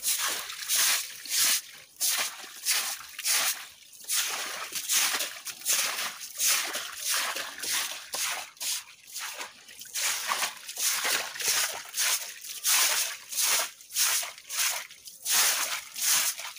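Stiff-bristled broom sweeping wet, gritty ground in quick repeated strokes, about two a second, each a short wet scrape.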